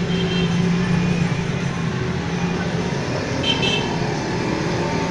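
Steady low engine-like hum over road traffic noise, with a brief high-pitched tone about three and a half seconds in.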